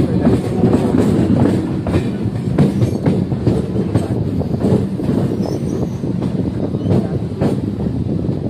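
Kolkata suburban electric local train (EMU) running along the line, heard from aboard: a loud, steady rumble of wheels on rail, broken by irregular clacks and knocks as the wheels cross rail joints and points.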